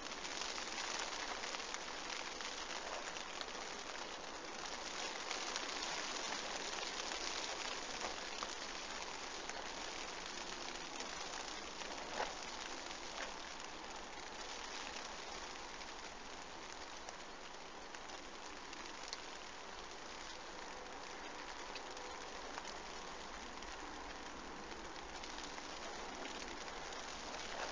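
Heavy rain falling steadily, a continuous even hiss, with one short sharp click about twelve seconds in.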